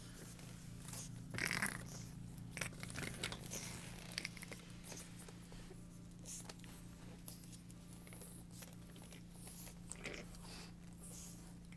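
Boston Terrier puppy chewing and gnawing on a rubber band ball, with irregular crunching and scraping clicks of teeth and paws on the ball, loudest about a second and a half in.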